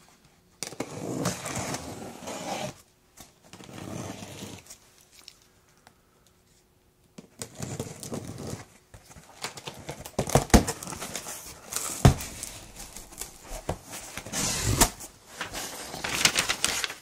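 The cardboard box of a softbox lighting kit being opened and handled: two long stretches of rustling and scraping, a short pause, then busier handling with several sharp knocks.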